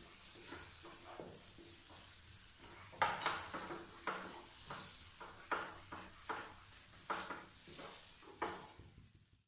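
Wooden spatula stirring and scraping thick semolina and gram-flour halwa around a non-stick frying pan, over a faint frying hiss; from about three seconds in, a run of sharp scrapes comes roughly one or two a second. The halwa is in its last roasting stage on high flame, drying out and leaving the pan.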